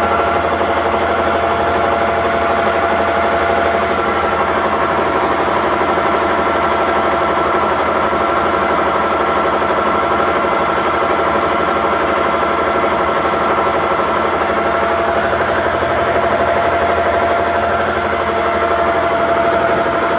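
Komatsu bulldozer's Cummins N855 diesel engine running at a steady speed, with steady whining tones over the engine note. The higher whine fades about three-quarters of the way through, while a lower one grows louder near the end.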